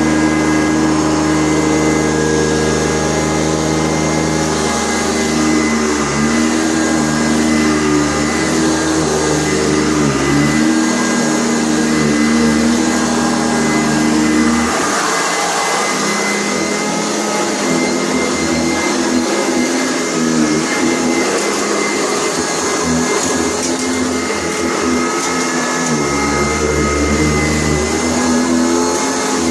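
Sanitaire SC684 upright vacuum cleaner running continuously, its motor drone shifting in pitch as it is worked. A low hum drops out about halfway through and comes back near the end.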